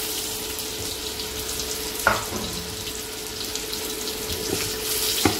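Whole boiled potatoes frying in hot mustard oil in a kadhai: a steady sizzling hiss, with a sharp knock about two seconds in and another near the end.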